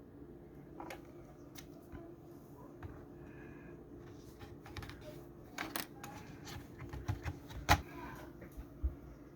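Scattered clicks and knocks of a laptop being handled and worked on for disassembly. The loudest sharp knock comes about three quarters of the way in, over a steady low hum.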